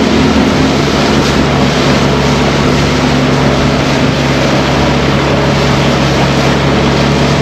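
Motorboat engine running steadily at speed, a constant drone under a loud, even rush of water and air.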